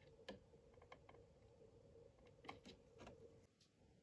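Near silence, with a few faint light clicks and taps from small plastic model parts and wires being handled.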